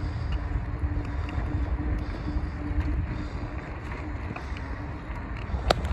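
Wind rushing over the microphone of a moving bicycle, with tyre rumble on concrete pavement. A faint steady hum runs through the first half, and a sharp click comes near the end.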